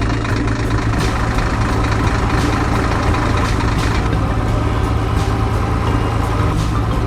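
A vehicle engine running steadily with a deep, rapidly pulsing hum.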